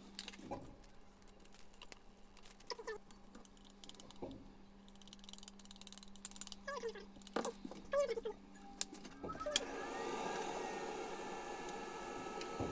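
Kitchen work played back at four times speed: quick clicks, knocks and short chirping squeaks of utensils and dishes over a low steady hum. About three-quarters of the way in the hum stops and a steady hiss begins.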